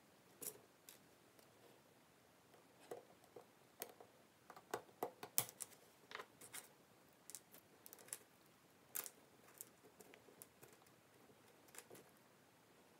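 Faint, irregular small metallic clicks and ticks as the Eterna Super Kontiki's stainless steel bracelet is handled and its end is released from the case lugs by pushing out the spring bar. The clicks come thickest around the middle, with a few sharper ones about nine seconds in.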